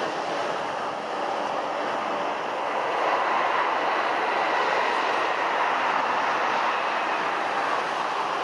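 Jet engines of a four-engined Boeing 747 freighter running as it rolls along the airfield: a steady rushing roar with a faint high whine, growing a little louder about three seconds in.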